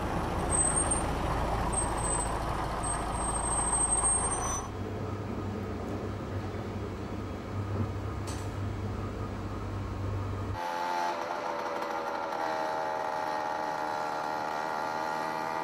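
Vehicle sounds in turn, changing at two cuts. First a bus's engine runs close by with thin high brake squeals. About five seconds in comes the steady low hum of a train heard from inside, and from about ten seconds in a small moped engine's steady pitched drone.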